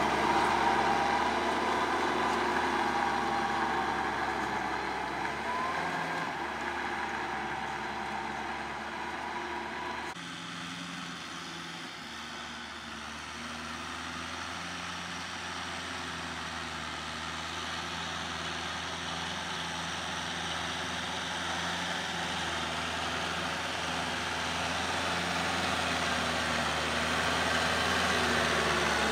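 Kubota M6040 tractor's diesel engine running steadily while it pulls a rotary tiller through the soil. It fades as the tractor moves away, then after a cut about ten seconds in it grows steadily louder as the tractor comes closer.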